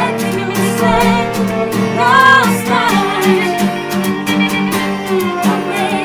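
Band playing live: voices singing over strummed rhythm guitar, lead guitar and viola, all recorded at once on a single microphone. A higher sung phrase stands out about two seconds in.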